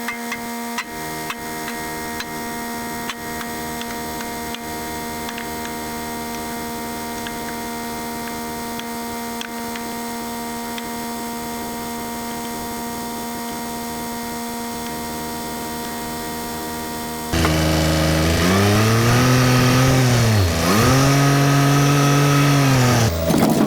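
A steady mechanical hum with faint ticks. About 17 seconds in, it gives way to a louder diesel engine of a Branson 2515H tractor working, its pitch dipping and rising as the load and throttle change.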